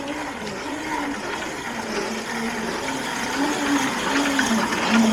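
Crazy Cart's electric motor whining, its pitch rising and falling over and over as the throttle is worked, over a hiss.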